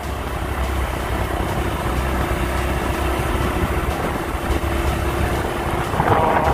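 A vehicle engine running steadily with road noise while driving, a steady low rumble with a faint constant hum.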